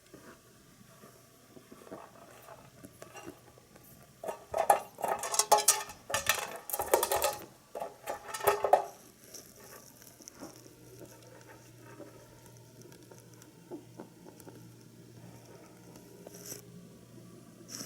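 Hay pellets rattling and clattering inside a pepper shaker as a rabbit pushes and knocks it about to get them out, loudest in a run of rattling between about four and nine seconds in. Before and after, fainter small clicks and crunches of the rabbit eating.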